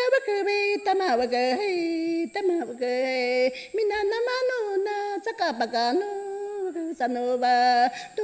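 A woman singing a traditional Awajún song solo and unaccompanied, holding level notes with slides between pitches and brief breaks for breath.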